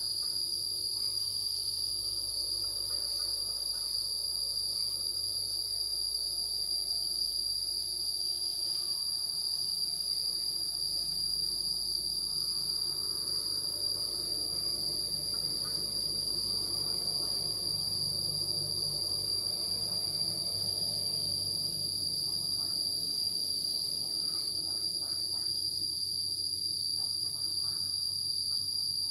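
Steady, high-pitched insect chorus from crickets or cicadas, droning without a break.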